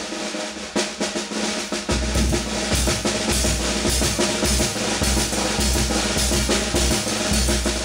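Peruvian banda playing, led by snare drums struck with sticks in rolls and quick strokes over held notes from the band; a heavy bass drum comes in about two seconds in.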